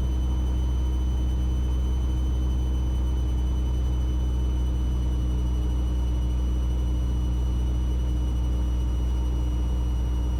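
Mooney M20E's four-cylinder piston engine and propeller droning steadily, heard inside the cockpit, with the prop set full forward for the landing approach.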